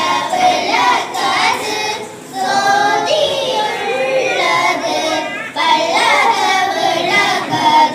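Children singing a song.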